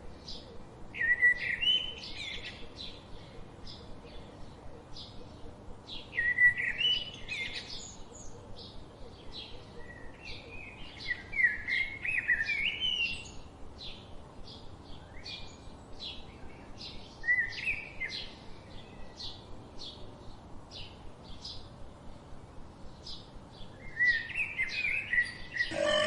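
Small birds chirping and singing: a quick run of short, high chirps throughout, broken by about five louder warbling phrases.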